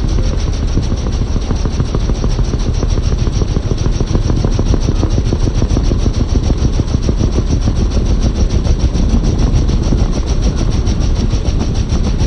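Steady loud engine rumble of an aircraft heard from on board, with a fast, even flutter and wind rush.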